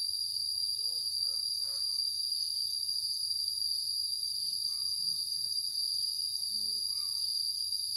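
Steady, high-pitched chorus of insects, an unbroken shrill drone.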